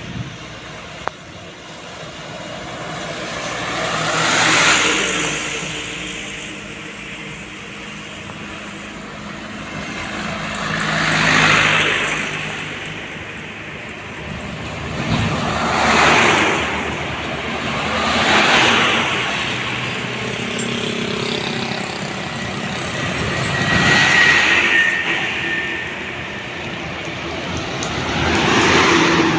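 Road traffic: trucks and other vehicles passing by one after another, each engine and tyre noise swelling to a peak and fading, about six pass-bys.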